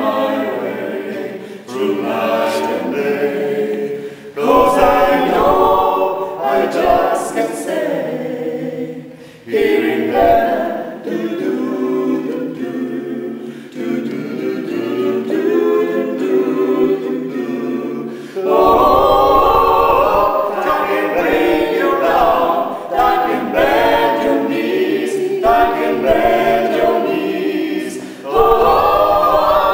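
Mixed vocal ensemble of men and women singing a cappella in close harmony, in phrases, swelling louder a little past the middle.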